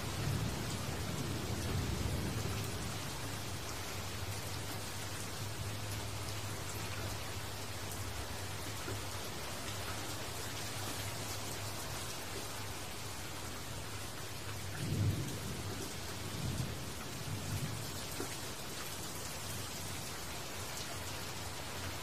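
Steady rain falling on leaves. Low rumbles come in near the start and again about two-thirds of the way through, the second the loudest.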